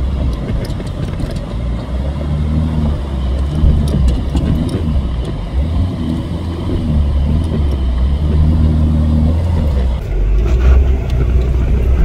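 Pickup truck engine running under way on a rough gravel track, heard from inside the cab: a steady low drone whose engine note rises and falls. Scattered knocks and rattles from the stony track, most of them near the end.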